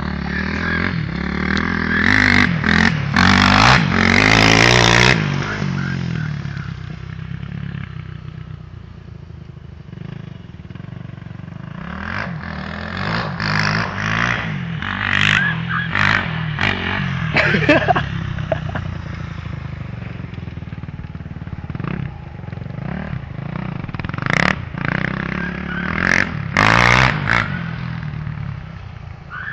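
Motorcycle engine running while being ridden, revving up hard in repeated bursts near the start, through the middle and near the end, and easing back to a lower drone in between.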